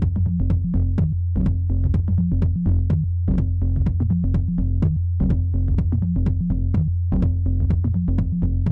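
Electronic dance music with a steady drum-machine beat and a heavy bass line.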